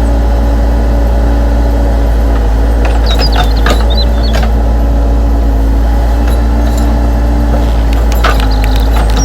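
RC construction model's motors running with a steady hum and drone, with short clicks and scrapes of the machine working twice.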